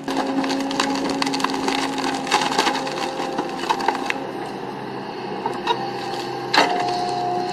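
Wood cracking and splintering as a heavy excavator claw tears a tree stump and its roots apart, with a dense run of crackles over the steady drone of the machine. A sharp crack about two-thirds of the way through.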